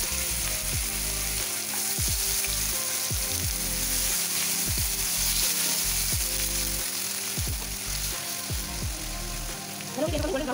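Chopped onions sizzling and frying in hot oil in a non-stick kadhai, stirred with a spatula.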